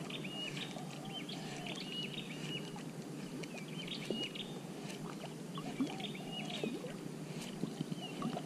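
A bird calling over and over in short notes, about two a second, over a steady low hiss of water and wind, with a few faint ticks.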